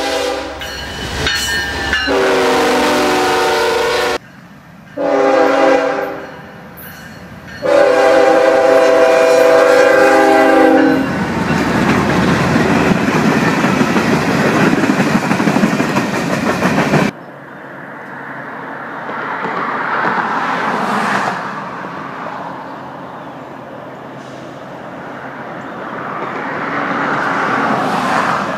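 Diesel freight locomotive horn sounding several blasts, long and short, then the rumble and wheel clatter of a freight train rolling past. After a sudden cut, a quieter rumble of a train approaching swells and fades.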